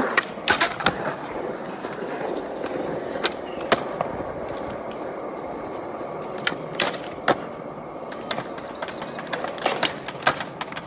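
Skateboard wheels rolling on smooth concrete with a steady rumble, broken by sharp clacks of the board popping and landing: a quick cluster near the start, a few single ones in the middle, and several more near the end.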